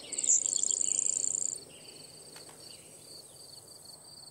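Insects trilling: a steady high-pitched trill, louder and buzzier for the first second and a half, with a high chirp repeating about three times a second beneath it.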